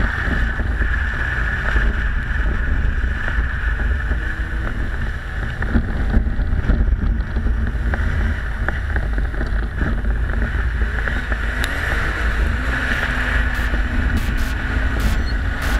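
Wind buffeting the microphone of a camera mounted on the outside of a moving BMW 3 Series, with the car's engine faintly beneath it, rising and falling in pitch.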